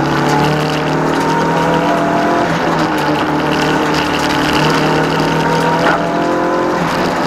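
Toyota Starlet EP82 rally car's engine heard from inside the stripped cabin, pulling hard under full throttle with its pitch climbing. Near the end comes a click and a drop in pitch at an upshift, and then it climbs again.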